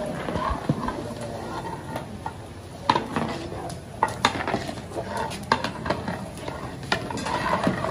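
Long-handled ladle stirring and scraping through wet rice in a large metal cooking pot (degh), with irregular sharp clinks and knocks of the ladle against the pot, the loudest about three seconds in.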